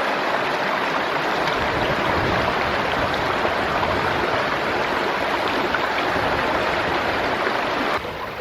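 A small stream's water rushing steadily, an even loud wash with no break, that cuts off abruptly near the end.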